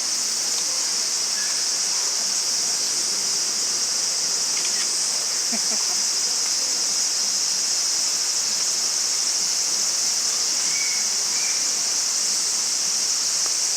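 Steady, high-pitched chorus of insects singing without a break, with a few faint ticks.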